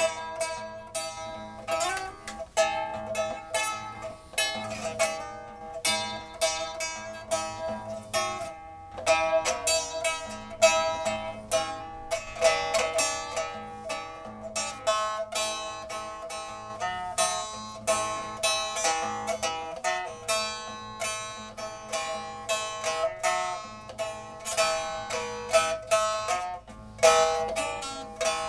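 Instrumental music on a plucked string instrument: a melody of single notes, each plucked and left to ring and fade.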